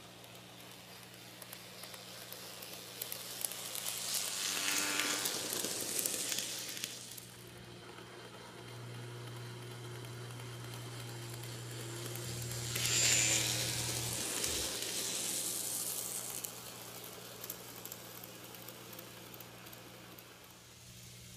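Bachmann GP38-2 model diesel locomotive running on sectional track: its electric motor whirs and its wheels rattle on the rails. It grows louder and fades away twice as it passes close by, about five seconds in and again about thirteen seconds in, over a steady low hum.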